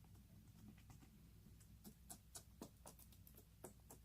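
Faint, irregular little sticky clicks of slime being stretched and pressed by hand, over a low steady hum.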